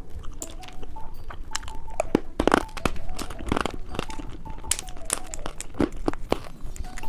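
Plastic candy wrapper crinkling and tearing open, with irregular sharp crackles and two louder crackles near the middle.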